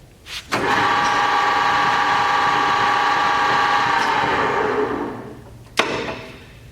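LeBlond 18-inch engine lathe's headstock running: after a click, a steady gear whine starts abruptly, holds for about four seconds, then winds down. A sharp clunk comes near the end.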